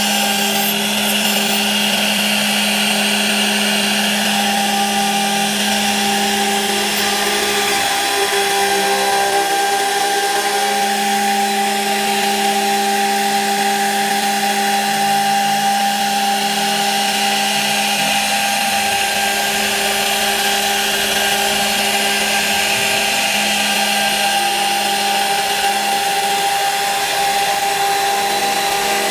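CNC router spindle running with a steady whine as its end mill carves grooves into a wooden panel, over a constant hiss of cutting. The pitch wavers briefly about eight seconds in.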